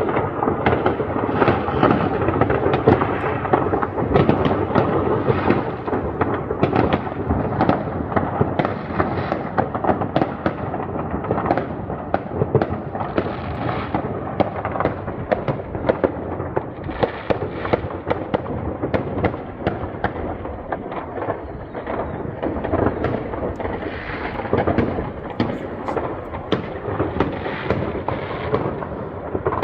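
Many fireworks and firecrackers going off at once: a dense, continuous barrage of overlapping bangs and crackles with no pause.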